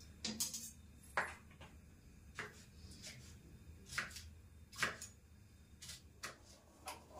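Kitchen knife chopping green beans on a plastic cutting board: separate sharp knocks, about one a second at an uneven pace, over a faint low hum.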